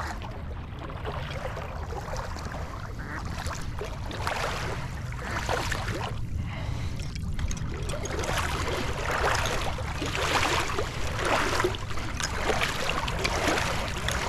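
Steady water noise, trickling and lapping around a boat, over a low rumble.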